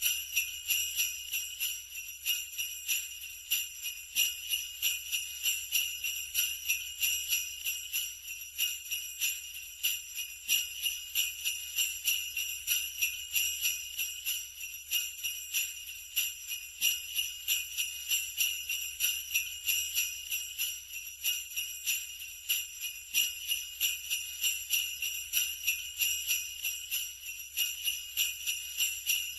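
Sleigh bells jingling continuously, shaken in a steady, even rhythm.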